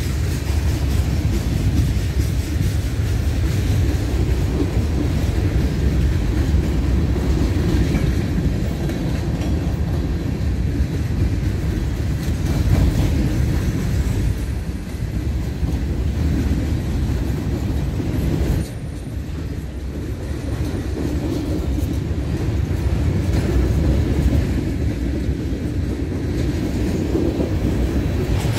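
Freight cars of a CPR manifest train (boxcars and covered hoppers) rolling past at close range: steel wheels running on rail in a steady, heavy rumble, with a sudden brief drop in loudness about two-thirds of the way through.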